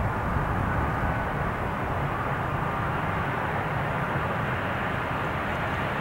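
Airbus A320's jet engines on final approach: a steady rushing noise with a faint steady whine, over a low rumble of wind on the microphone.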